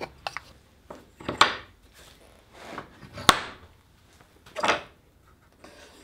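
Small plywood bench-dog plates set down and slid on a plywood workbench top: about five short wooden knocks and scrapes, the sharpest knock a little past three seconds in.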